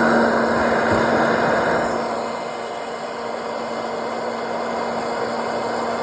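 Electric hot-air popcorn popper running just after being switched on: a steady fan blowing with a constant motor hum, a little softer after about two seconds, with no kernels popping yet.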